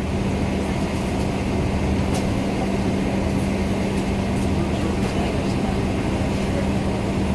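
Steady cabin noise of a parked Boeing 777-300ER before pushback: an even rush of ventilation air over a constant low drone, with a couple of faint ticks.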